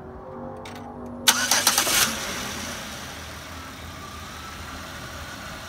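Pontiac G6's 3.5-litre 3500 V6 being started for the first time after an oil change. The starter cranks briefly about a second in, then the engine catches and settles into a steady idle.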